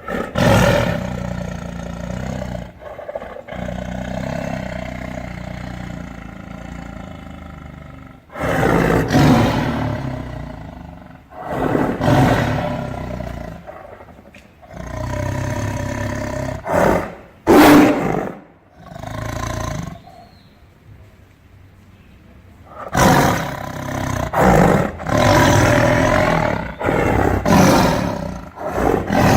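Tiger growling and roaring in a series of deep, rough calls, some short and some held for two or three seconds, with brief pauses between them.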